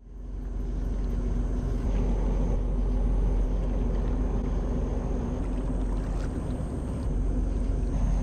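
Steady low drone and hum of a large ship's machinery on the river, an even rumble with a constant hum above it.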